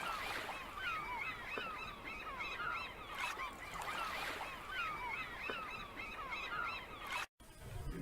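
A flock of geese honking, many short calls overlapping one another, ending abruptly just after seven seconds.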